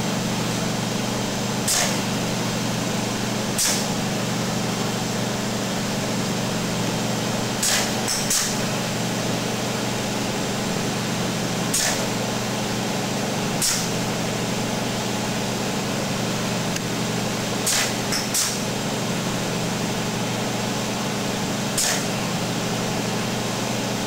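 An ABB industrial robot's gripper releasing and catching a bouncing ball: sharp clicks and knocks every two to four seconds, some in quick pairs, over a steady mechanical hum.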